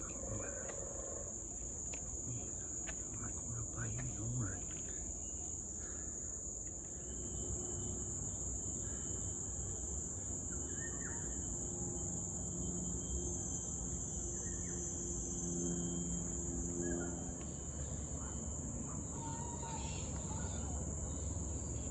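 Rainforest insects, cicadas or crickets, keeping up one steady high-pitched drone. A fainter low hum joins in for several seconds in the middle.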